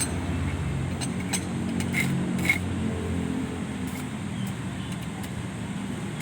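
Arc welding in progress: a steady electrical hum and hiss from the arc, with a few sharp ticks in the first half.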